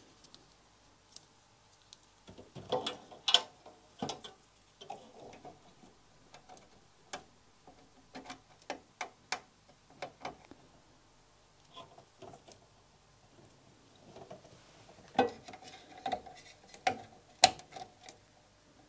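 Irregular clicks, taps and rattles of power-supply cables and plastic connectors being handled inside a steel PC case while the graphics card's auxiliary power cable is routed. The clicks are sparse, with a denser, louder cluster near the end.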